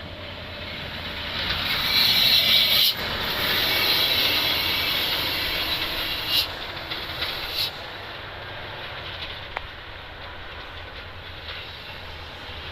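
Hino 500 concrete mixer truck passing on a steep descent. Its rumble and road noise swell to a peak about two to three seconds in, then settle to a steadier, quieter rumble. Hissing cuts off sharply near three seconds, and short hissing bursts come again around six and a half and seven and a half seconds.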